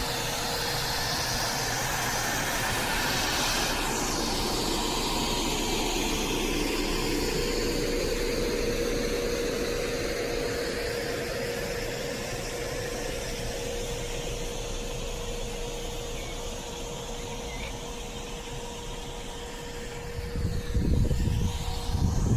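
EN57 electric multiple unit running, with a steady electrical hum over continuous rolling noise. Gusty low rumbling comes in during the last couple of seconds.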